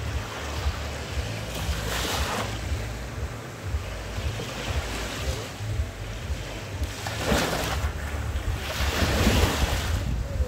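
Small sea waves breaking and washing up a sandy beach, with louder surges about two seconds in, at about seven seconds, and again near the end. A steady low rumble of wind on the microphone lies underneath.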